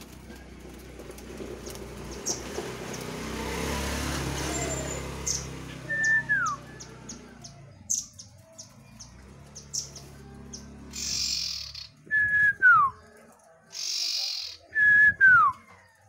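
Caged common iora whistling three times, each call a held high note that slides down at the end, between quick high chips. Two short hissing rasps come near the end.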